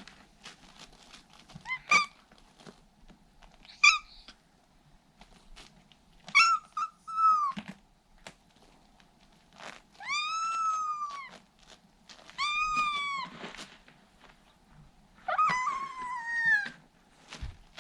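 Scottish Fold kitten meowing again and again, about seven calls: short sharp ones in the first half, longer drawn-out cries in the second. It is crying to be let out of its cage.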